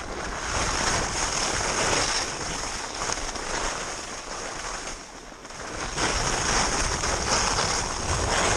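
Skis scraping over chopped, packed snow through a run of turns, the sound swelling and fading with each turn, with wind buffeting the microphone. It drops away for a moment about five seconds in, then comes back louder.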